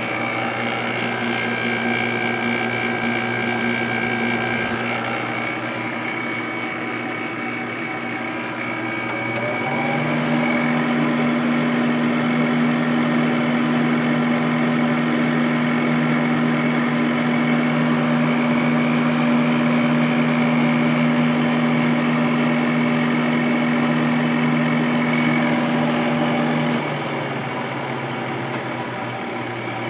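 Sharp window air conditioner running: fan and a steady hum from its Matsushita rotary compressor. The hum grows louder about a third of the way in and drops a few seconds before the end, as the compressor shuts off and leaves the fan running.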